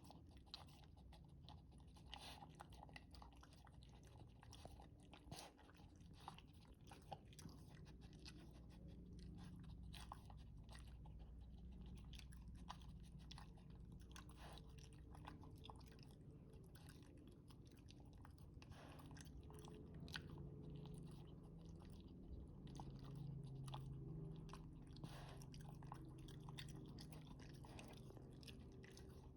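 A dog chewing its food: faint, irregular crunches and clicks, several a second.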